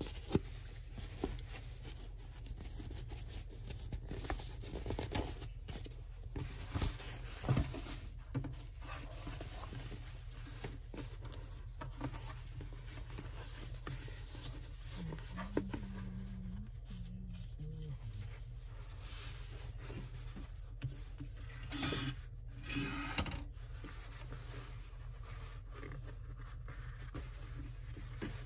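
Heavy canvas fabric being handled, folded and rustled, with scattered small clicks and taps over a steady low hum. There are a couple of louder rustles near the end.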